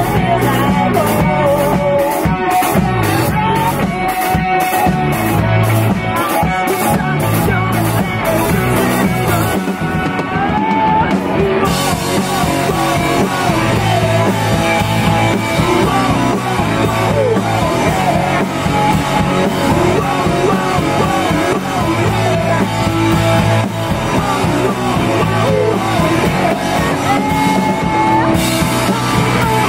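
Rock band playing live: electric guitars, electric bass and drum kit with singing. For the first ten seconds a cymbal keeps steady strokes about two and a half a second; the cymbals drop out briefly about ten seconds in, then the full band comes back in.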